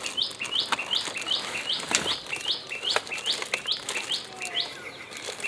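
A bird calling over and over, a short rising chirp repeated about three times a second, with a few sharp clicks mixed in.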